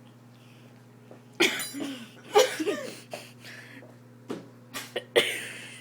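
A man coughing and sneezing in a run of sudden loud fits, starting about a second and a half in, set off by eating dry ramen seasoning powder.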